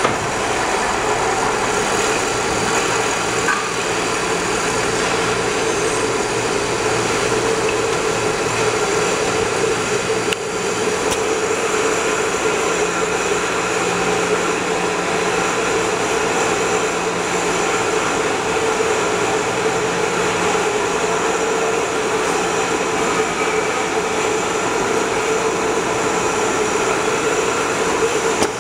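Steady machine noise of a running beer-canning line, with conveyors carrying empty aluminium cans from the de-palletizer, under a constant hum.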